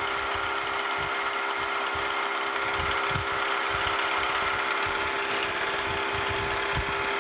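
Milling machine spindle running at about 525 RPM with a 2-flute 1/4-inch end mill taking a light, slow-fed slotting pass in a small rough casting: a steady motor hum under a fine, rapid cutting hiss that grows louder from about halfway through.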